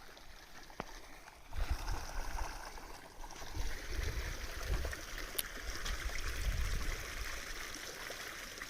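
Forest waterfall rushing with a steady hiss, under an uneven low rumble that comes and goes from about a second and a half in.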